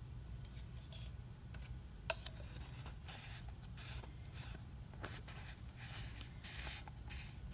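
Faint rustling and scraping of hands handling craft supplies on a work table, with one light knock about two seconds in, over a low steady hum.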